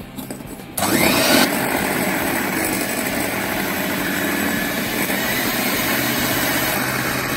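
Electric hand mixer switched on about a second in. Its motor whirs up to speed, then runs steadily with the beaters whisking egg whites and sugar.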